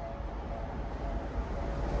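Low rumble of a Tokyu Meguro Line electric train approaching at high speed, growing steadily louder, with a faint repeating tone from the level crossing's warning bell.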